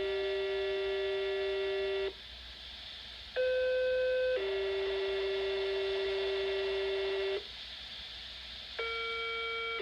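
Two-tone sequential fire pager alert tones from a pager's speaker. A long low tone ends about two seconds in, and after a stretch of radio hiss a one-second higher tone steps down into a three-second lower tone. After another gap of hiss, a second higher tone begins near the end. These tones set off fire-department pagers.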